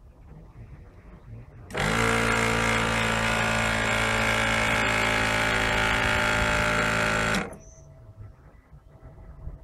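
A motor starts suddenly, runs at one steady pitch with a strong hum for about five and a half seconds, then cuts off.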